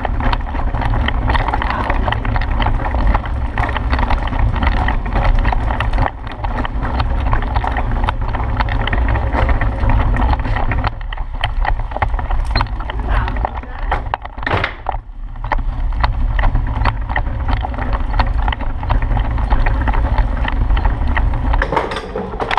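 Child's tricycle rolling over a hard floor: a loud, continuous rumble and rattle with many small clicks.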